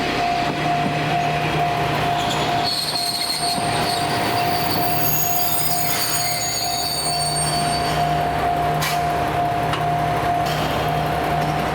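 Japanese railway level-crossing alarm ringing on one steady tone while a train passes, its wheels squealing in high tones from about three seconds in until about eight seconds in.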